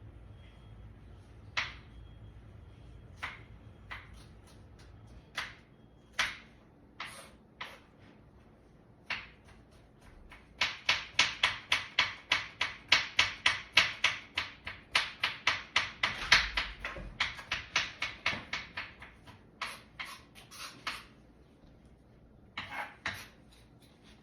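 Knife chopping fresh garlic on a cutting board. A few separate cuts at first, then a fast, steady run of about three to four chops a second for some eight seconds, then a few last cuts near the end.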